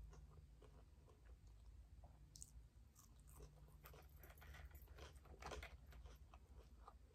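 Faint chewing and crunching of food close to the microphone: irregular crackly bites and mouth sounds, busiest in the second half.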